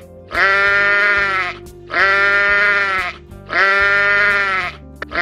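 An animal bleating in repeated calls, each about a second long on a steady pitch, coming roughly every second and a half: three full bleats, then a fourth starting near the end. Background music runs underneath.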